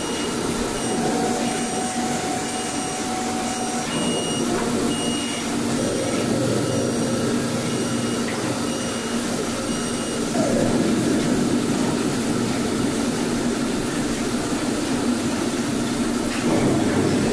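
SMT pick-and-place machines running on a production line: a steady mechanical whirr and hum. A short, high electronic tone repeats at even spacing for about the first ten seconds, then stops.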